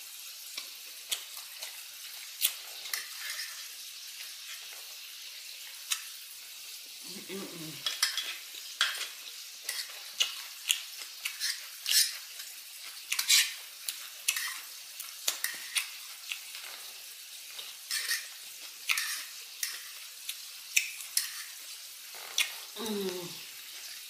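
Close-up chewing of crisp salad: irregular wet crunches and crackles. A short low hum from the eater comes twice, about 7 seconds in and near the end.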